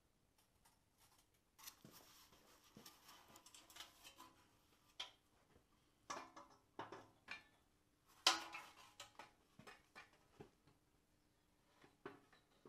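Faint handling noises of engine parts being fitted by hand: scattered light clicks and taps with some scraping, as an exhaust manifold gasket is worked into place on the engine. The sharpest click comes a little past the middle.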